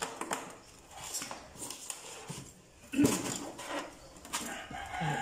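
Light clicks and taps of a small tool and metal parts being handled on a motorized bicycle engine, with a louder short call, voice- or animal-like, about three seconds in.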